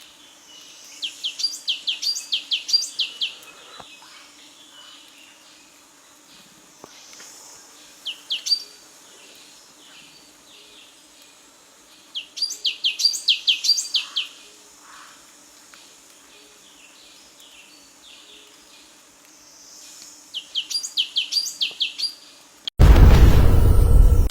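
A bird singing fast trills of high, short, downward chirps, in four bursts of about two seconds each, with quiet gaps between. Near the end a sudden loud rush of noise cuts in.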